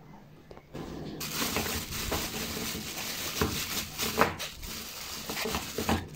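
Clear plastic bag crinkling and rustling as frozen sausages are handled inside it, starting about a second in, with scattered sharp crackles.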